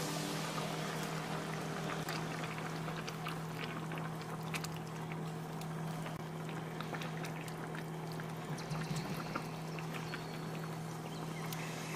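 Tomato-based escabeche sauce simmering in a nonstick frying pan: steady bubbling with many small pops, over a steady low hum.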